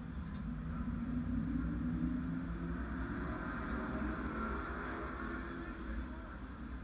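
Mini stock race car's engine running at low revs, a steady low rumble whose pitch drifts gently up and down, heard from inside the car.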